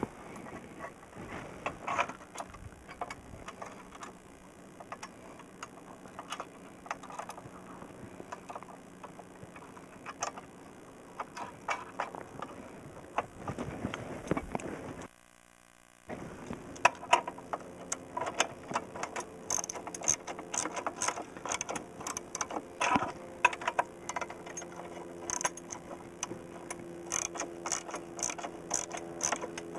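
Socket ratchet wrench clicking in quick runs as bolts are turned, with a one-second drop to near silence about halfway through.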